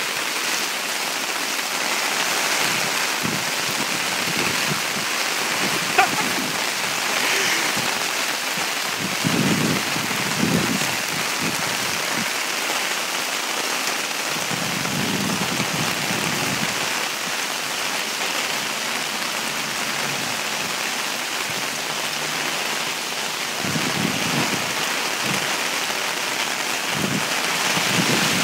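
Very heavy rain pouring onto a street and pavement, a steady dense hiss, with low rumbles swelling now and then and one sharp tap about six seconds in.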